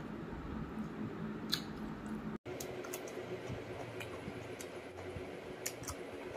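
Close-up eating sounds: wet squishing and chewing as he mixes rice and curry by hand and eats. Near the end, a few sharp crisp clicks come as he bites a raw cucumber slice. The sound cuts out for an instant about a third of the way in.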